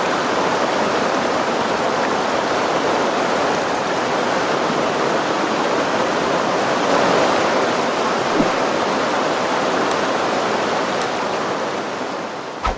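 Stream flowing steadily, a constant rush of running water that fades out near the end.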